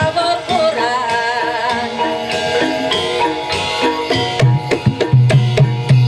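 Javanese gamelan music for a jathilan horse-trance dance: kendang hand drums beating a fast pattern over ringing metallophones, with a wavering high melody in the first couple of seconds. The deep drum strokes fall back for a few seconds and come back strongly near the end.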